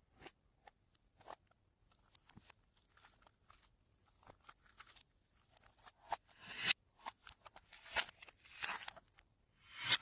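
Hands kneading and squishing slime: irregular sticky clicks and crackling pops, with a few longer, louder squelches in the second half.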